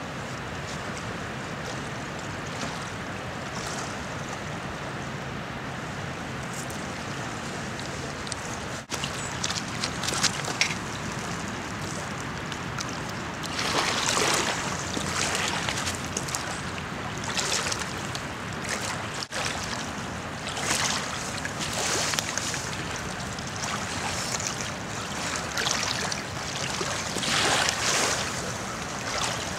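Water washing against a pebbly shore with wind noise, a steady rushing hiss. Brief louder rushes come every second or two through the second half.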